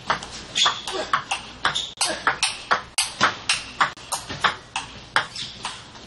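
Fast table tennis rally: the ball clicking sharply off the bats and bouncing on the table, about three to four clicks a second in a steady back-and-forth rhythm.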